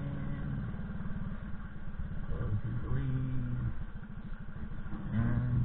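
Small motorcycle engine running steadily at low speed while riding along a dirt track, its firing pulses continuous throughout.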